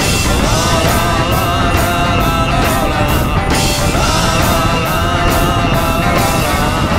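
Rock music with a steady drum beat and a wavering melodic line, the soundtrack laid over the footage.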